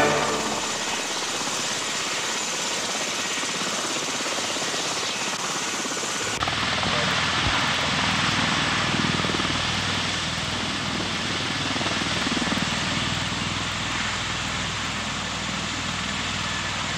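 V-22 Osprey tiltrotor's proprotors and turboshaft engines running in helicopter mode on the ground, a steady rushing rotor noise. The sound shifts abruptly and grows a little louder about six seconds in.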